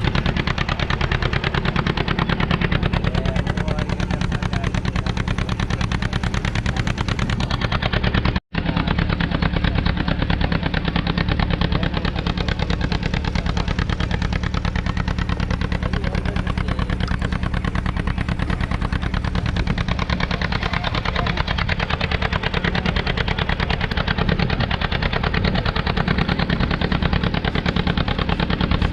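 Boat engine running steadily at close range with a fast, even beat of firing strokes, briefly cut off about eight seconds in.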